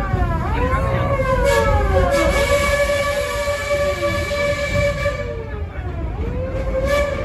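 Wailing, siren-like tones swooping up and down over a steady held tone, with a steady low rumble underneath.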